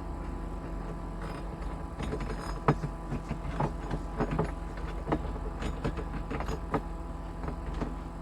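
Scattered clicks and light knocks of hardware and tools being handled during a shelf installation, over a steady low hum.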